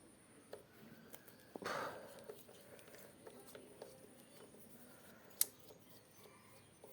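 Faint handling sounds from taking a wall fan apart: scattered small clicks, a brief scrape about one and a half seconds in, and one sharp click near the middle.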